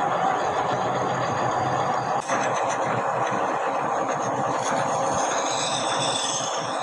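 Metal lathe running steadily as it spins an axle shaft, with a file held against the turning shaft in the second half. A high, wavering squeal builds over the last couple of seconds.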